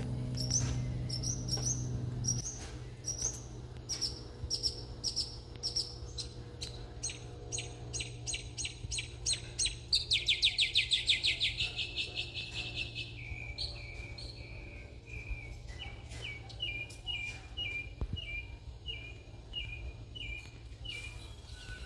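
Small birds calling: repeated short high chirps about two a second, a fast trill that falls in pitch about ten seconds in, then a run of lower, evenly spaced notes. A steady low hum runs underneath.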